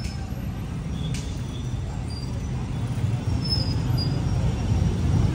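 Road traffic noise: a steady low rumble of vehicles that gets louder near the end.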